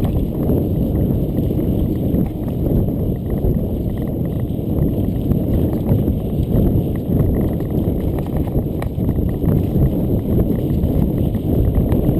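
Mountain bike rattling and clattering over rocky cobbles: a dense, continuous run of knocks under a steady low rumble.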